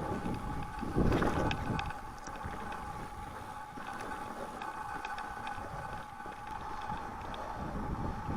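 A mountain bike rolling over a snowy trail, with wind buffeting the microphone in heavy gusts during the first two seconds, then a steadier rolling hiss with scattered light clicks and rattles.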